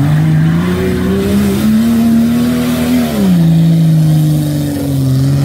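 An off-road 4x4's engine revving hard under load. Its pitch climbs over the first second or so, holds, drops sharply about three seconds in, then climbs again near the end as the throttle is worked.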